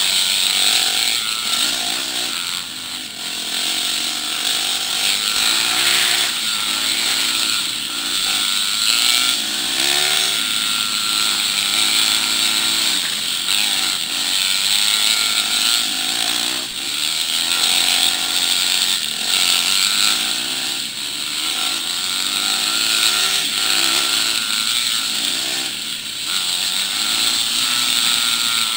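Dirt bike engines running on a trail ride, the engine note rising and falling again and again as the throttle is opened and closed.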